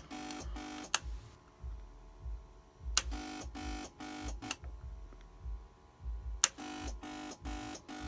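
2004 Suzuki GSX-R1000's electrical system pulsing on a failed start: a buzzing pulse repeating about three times a second. It stops at a sharp click about a second in. Another click comes partway through, and the pulsing starts again after a loud click near the end. This is the solenoid popping and the electrics cutting in and out that the owner describes on a full battery, a no-start whose cause he does not know.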